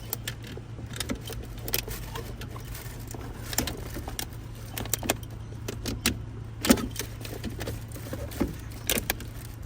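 Scattered light clicks, knocks and rattles of objects being handled and moved around, over a steady low hum.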